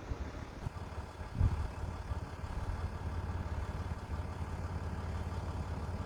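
Vehicle engine idling steadily, with a brief low thump about a second and a half in.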